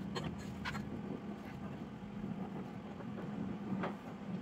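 A few light clinks and taps of bent steel tubing being handled against a steel welding table, over a steady low hum of shop machinery.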